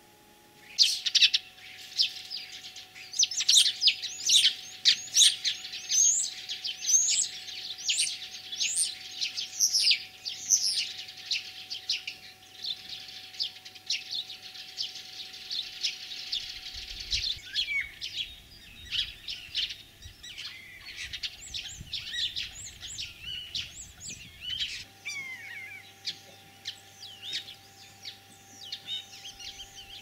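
Common starling singing: a rapid run of sharp, falling whistles and clicks, loudest over the first ten seconds, then softer rattling chatter and warbling.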